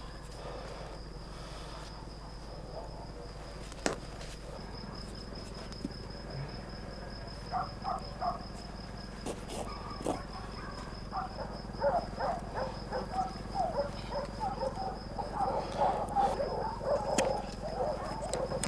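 Crickets trilling in the grass as one steady high-pitched tone, with a few sharp clicks. From about halfway a run of short, irregular mid-pitched sounds grows busier toward the end.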